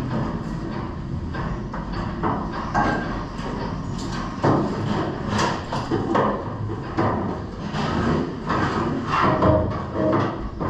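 Irregular knocks and clanks of tools and steel being handled down in a steel boat's bilge.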